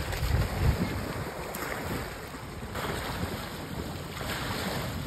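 Wind buffeting the microphone in uneven low rumbles, over a steady wash of water.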